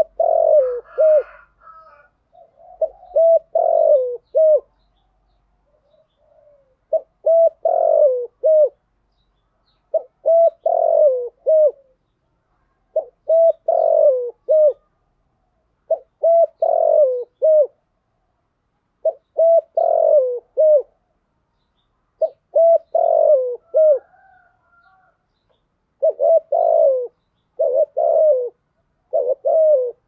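Spotted dove cooing its song: a repeated phrase of several coo notes about every three seconds, coming as quicker, shorter phrases close together near the end.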